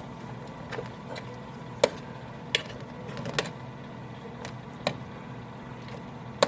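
A cooking utensil clicking and scraping against a metal baking sheet as cooked bacon strips are pried loose and lifted off: about half a dozen separate sharp clicks, over a steady low hum.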